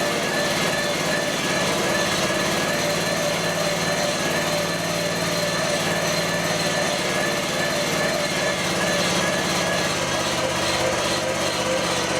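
Small engine running steadily under load, powering the hydraulic drive that belt-drives a homemade mower deck's blade on its first test run.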